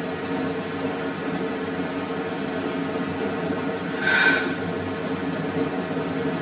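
Steady background hum with a short, brief louder sound a little past four seconds in.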